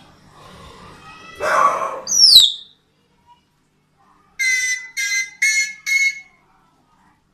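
A bird making a string of different calls: a harsh call, then a sharp falling whistle, then after a pause four short ringing notes in quick, even succession.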